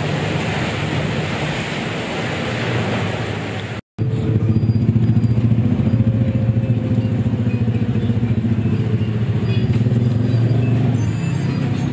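Diesel bus on the move: a steady rush of wind and road noise, which breaks off at a cut about four seconds in. After the cut comes the engine's steady low drone.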